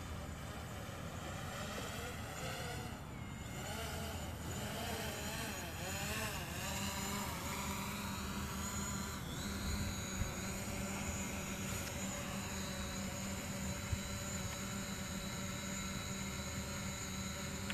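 Quadcopter drone's motors and propellers whirring as it comes down to the grass. It is a stack of high steady tones whose pitch wobbles up and down for a few seconds as the motors adjust, then settles into an even whine, with two brief clicks in the second half.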